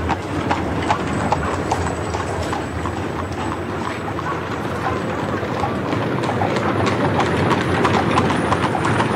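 Horses' hooves clip-clopping, a steady run of hoofbeats over a constant hiss.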